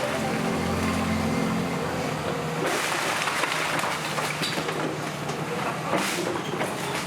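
Heavy construction machinery running on an earthwork site, a steady engine hum at first, then a continuous rattling clatter with scattered knocks.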